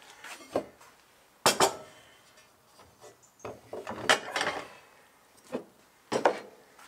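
Workshop handling noises as a rolled copper tube and steel V-blocks are lifted off a wooden workbench: five or so sharp knocks and clatters, with rubbing and scraping between.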